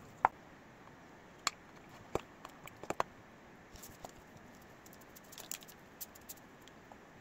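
Scattered light taps and clicks from small objects being handled, about a dozen at uneven intervals, the sharpest about a quarter second in, over a faint steady hiss.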